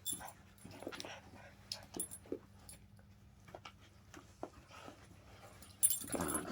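Two dogs, a Jack Russell terrier and a Rottweiler puppy, at rough play in a tug of war: short whimpers and faint scuffling, with one louder cry about six seconds in.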